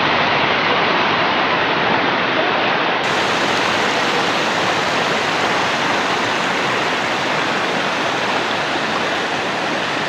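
Shallow rocky river rushing over stones: a loud, steady rush of water.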